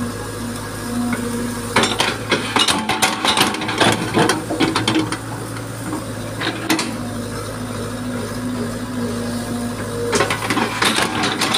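Small excavator's engine running steadily, with clusters of crackling and clicking as the bucket digs into soil and roots, from about two to five seconds in and again near the end.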